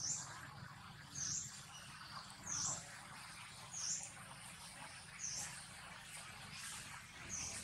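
A bird's short, high chirp, falling in pitch, repeated at a steady pace roughly every second and a quarter over a faint steady low hum.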